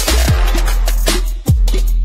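Electronic background music with a heavy, steady bass and deep kick drums that drop in pitch. The music dips for a moment just before a kick about one and a half seconds in.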